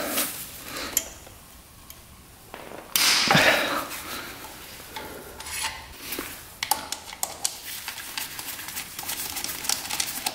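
Hand screwdriver working the clutch cover screws out of a Honda Z50 engine case: scattered metal clinks, clicks and scrapes of tool and screws, with a louder scraping burst about three seconds in and a run of quick clicks later on.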